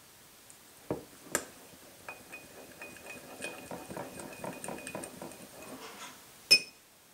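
Metal spoon stirring chili oil into soy sauce in a small glass bowl, tapping and scraping against the glass so that it rings faintly. Two knocks come about a second in, and a single sharp, ringing clink of spoon on glass comes near the end.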